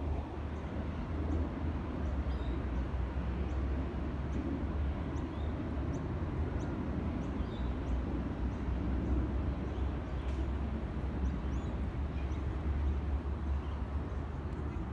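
Outdoor ambience: a steady low rumble with faint, short bird chirps repeating throughout.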